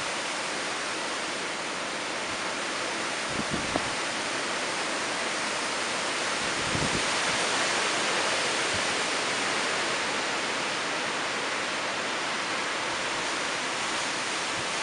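Hurricane-force wind and heavy wind-driven rain, a steady dense hiss. A few brief low thumps come about three and a half and seven seconds in.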